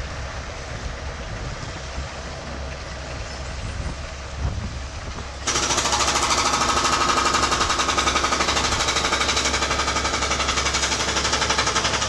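Outdoor rumble with a low hum, then about five and a half seconds in a demolition hammer suddenly starts pounding concrete loudly in a rapid, steady stream of blows.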